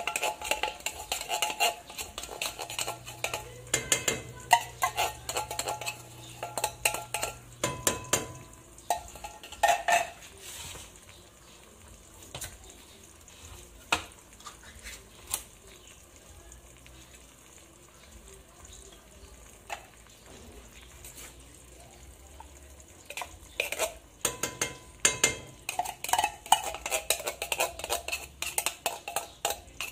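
A metal fork scraping and clinking inside a tin can as canned corned beef is dug out into a pot: rapid runs of clicks and scrapes for the first ten seconds and again from about 24 seconds on, with only scattered clicks in between. A faint sizzle of the meat in hot oil runs underneath.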